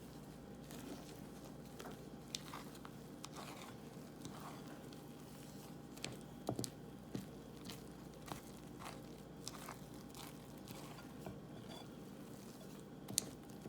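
Muffin batter being stirred in a mixing bowl: faint, irregular soft scrapes and squishes, with the odd sharper click of the utensil against the bowl, the loudest near the end.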